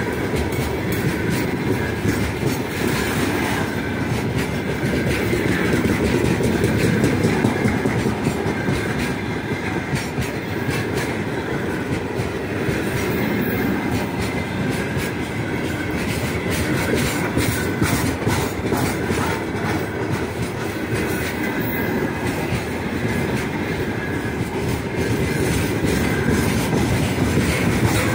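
A long freight train of open gondola wagons rolling past close by: a steady rumble of wheels on the rails, with the clickety-clack of the wheelsets running over the rail joints.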